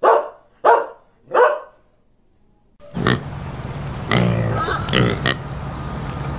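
A dog barks three times in quick succession. After a short pause a pig grunts a few times over a steady hiss.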